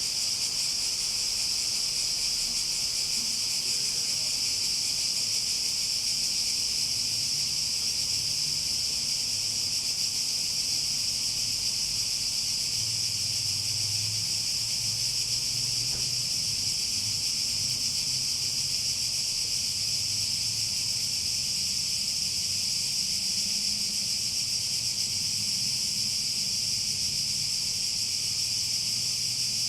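Chorus of cicadas buzzing in a steady, continuous high-pitched drone that never breaks or changes in level, with a faint low rumble beneath.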